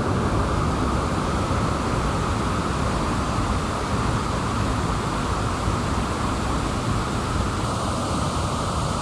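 Steady rushing roar of a waterfall's falling water, an even wash of noise with no break.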